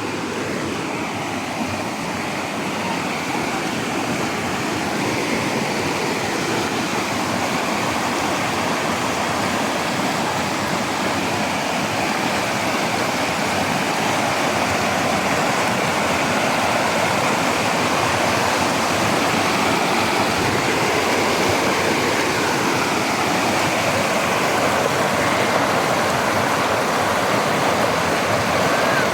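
Stream water rushing steadily over rocks, growing gradually a little louder.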